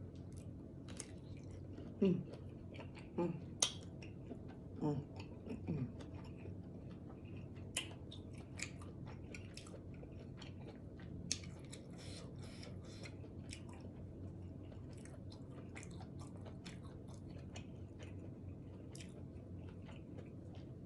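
Close-miked eating of a seafood boil of shrimp and snow crab legs: wet chewing and mouth smacking with many sharp clicks, busiest about halfway through. A few brief low hums drop in pitch in the first six seconds.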